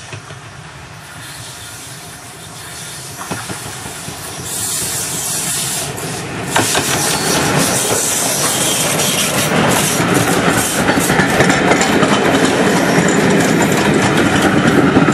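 LMS Stanier Black Five 4-6-0 steam locomotive approaching and passing close by, its working exhaust and motion growing steadily louder, with a sharp jump about halfway through as it draws level. The train's coaches then rattle and clatter past over the rails, and the sound cuts off suddenly at the end.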